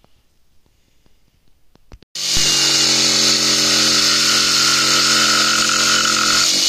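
Corded jigsaw cutting through a plywood sheet: a steady motor hum under a loud, high hiss of the blade. It starts abruptly about two seconds in and runs on without a break.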